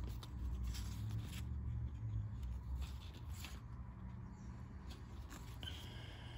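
Yu-Gi-Oh trading cards being slid and flipped one behind another by hand: faint, scattered soft swishes of card rubbing on card.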